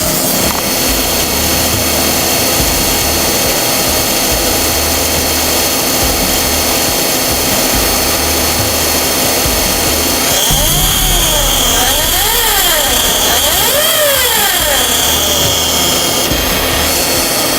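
Toyota Alphard's K115 automatic transmission making an abnormal noise with the engine running, recorded close up: a loud, steady mechanical drone with whining tones. About halfway through, a whine rises and falls several times.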